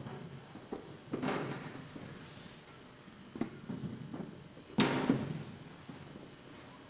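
A hushed, large echoing room broken by a few knocks and bangs, with two louder bangs about a second in and near five seconds, each ringing out briefly in the hall's echo.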